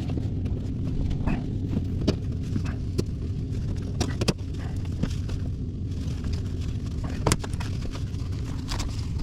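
A steady low hum with scattered sharp knocks and clicks, the sound of someone working on ductwork in an attic.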